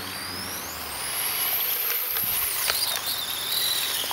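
High-pitched whine of an electric RC touring car's 9T brushless motor and belt drive, rising in pitch as the car speeds up and holding high. About two and a half seconds in the pitch drops sharply as the car slows, then it runs on at a lower pitch.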